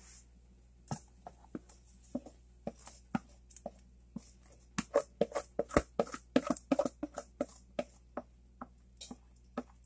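Thick batter with peach pieces poured from a plastic bowl, plopping and splatting into a metal cake pan: a run of short, soft, wet clicks that starts sparse and comes thickest about halfway through.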